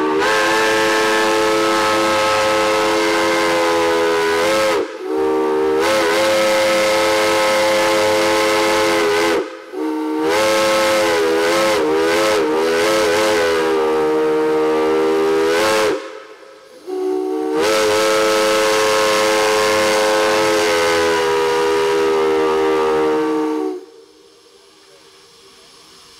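Chime steam whistle fed with steam from a Shay locomotive, sounding a chord of several tones in four long blasts of four to six seconds each. During the third blast the chord wavers and bends in pitch. The last blast cuts off shortly before the end, leaving a fainter steam hiss.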